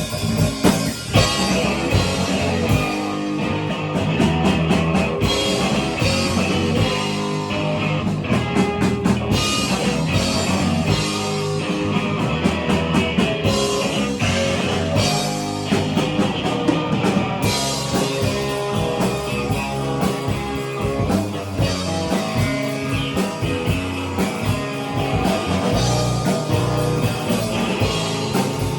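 Rock music with guitar and a drum kit playing at a steady beat.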